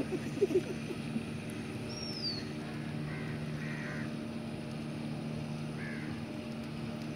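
Crows cawing a few times over a steady low hum, while another bird gives a high, falling whistled call once. A few soft knocks come near the start.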